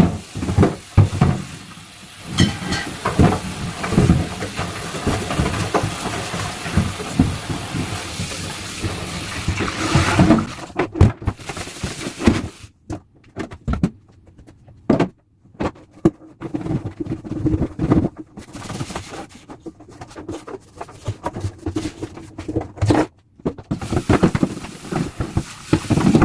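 Kitchen tap running as a fridge part is rinsed, with knocks and clatter from handling it; the running water stops about ten seconds in, and scattered knocks and handling noises go on.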